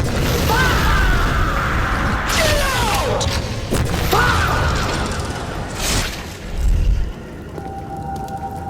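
Layered action sound effects: mechanical clanking and booms with several sweeping tones that rise and fall, then a deep boom about seven seconds in. Steady held tones come in near the end.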